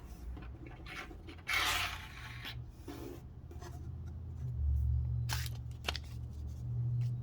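Handling noises at close range: a brief rubbing scrape about a second and a half in, then two sharp clicks a little past five seconds, over a low hum that grows stronger from about four and a half seconds on.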